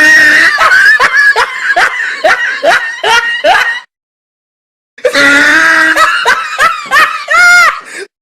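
Two laughing sound effects played one after another with a dead-silent gap about four seconds in. The first is a high-pitched laugh in quick rhythmic pulses. The second is another laugh that ends in a shrill rising-and-falling squeal.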